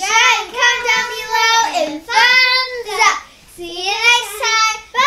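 Two young girls singing a short tune together in long held notes, with brief breaks between phrases.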